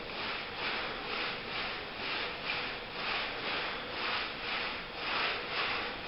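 Paint roller on an extension pole rolled back and forth over sanded oak parquet, spreading a white liquid wood treatment: a swishing rub about twice a second, each stroke swelling and fading.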